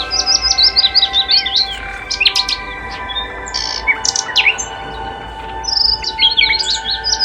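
Small songbirds singing, with quick runs of high chirps and trills from more than one bird. There is a lull of about a second past the midpoint, then the chirping picks up again.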